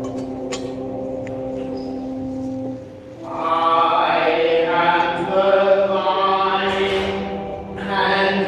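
Slow chant-style sacred singing. A long held note ends just before three seconds in, and after a brief dip a new, fuller sung phrase begins.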